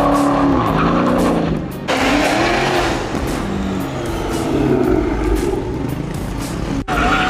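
Supercharged V8 engines of Dodge Hellcat muscle cars revving and accelerating, the pitch rising and falling with the throttle.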